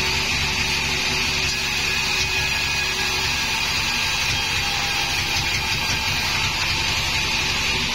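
Sawmill band saw running steadily, with a low rumble and a steady high tone.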